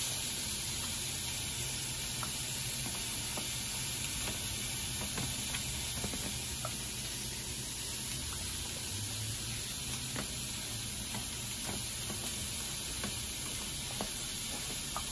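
Pollock fillets frying in oil on a hot grill pan: a steady sizzle with occasional faint crackles.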